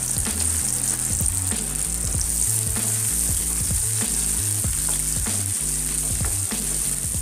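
Freshly added chopped shallots sizzling steadily in hot oil with whole spices, with the spoon clicking against the pan now and then as they are stirred.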